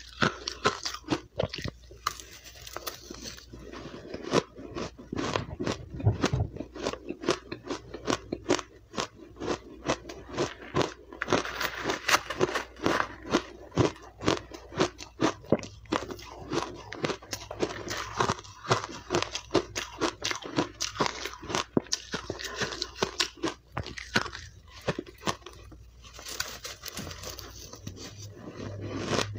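A mouth crunching and chewing powdery, crushed refrozen ice: a dense, irregular run of sharp crunches and crackles, several a second.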